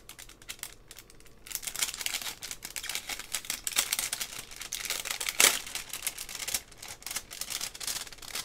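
Pin packaging rustling and crinkling as it is handled, a dense run of small irregular crackles after a quieter start, with one sharper crackle about five and a half seconds in.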